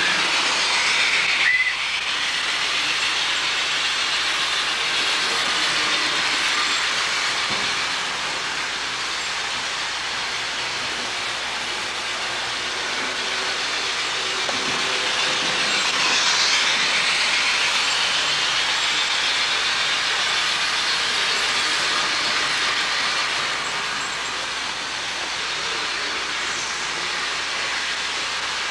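HO scale model trains running on the layout: a steady whirring hiss of locomotive motors and wheels on the track, swelling a little as a train passes close about a second in and again about sixteen seconds in.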